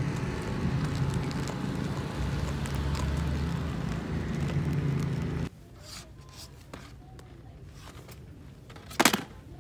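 Outdoor street ambience with a steady low engine-like rumble, heard while walking on a sidewalk. About halfway through it cuts off to quieter indoor store ambience with light handling sounds and one short sharp noise near the end.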